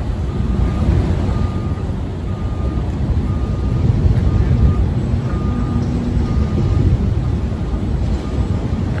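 Steady low rumble of a heavy vehicle engine running, with a backup alarm beeping about once a second over it.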